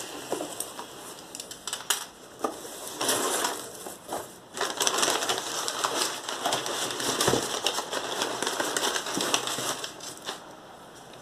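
Crumpled brown paper packing and a cardboard box rustling and crinkling as hands open the flaps and dig through the paper, with scattered clicks and knocks from the cardboard being handled.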